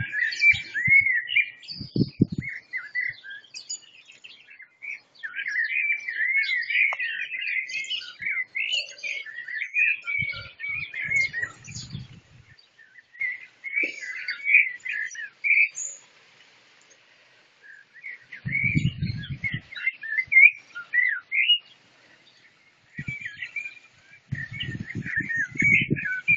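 Songbirds singing: long, varied warbling phrases broken by short pauses. A few low rumbles come in between them.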